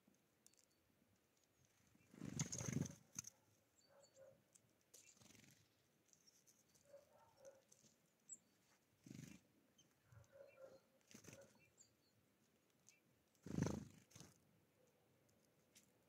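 Mostly near silence with faint scattered taps of small birds pecking at seed on a wooden tray feeder. Two brief fluttering bursts, about two and a half seconds in and near the end, come from tits' wings close to the microphone as the birds land or take off.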